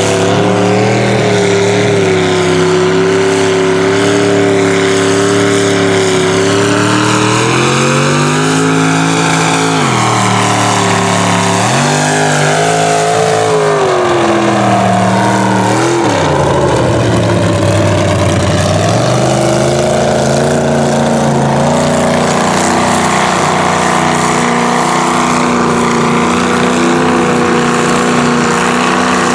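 Lifted mud truck engines running hard through deep water, the revs rising and falling several times through the middle, then held steady and high. Water and mud spray hiss under the engine note.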